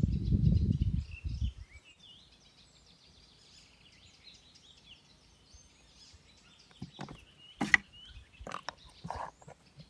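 Small birds chirping and twittering in the background, after a low rumble in the first second or so. Near the end come a few sharp clicks and knocks, the loudest about three-quarters of the way through.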